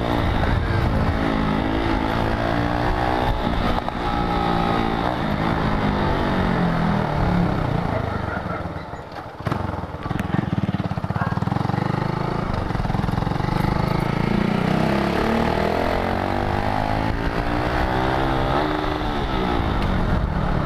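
Motorcycle engine heard from the rider's seat, revving up and falling back several times as the gears change. It eases off about nine seconds in, then pulls away again at low revs before climbing once more.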